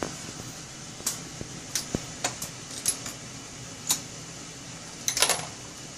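Sharp metallic clicks and clinks of pistol brass cases and a hand depriming tool being worked, about one every half second, with a quick cluster of clinks near the end.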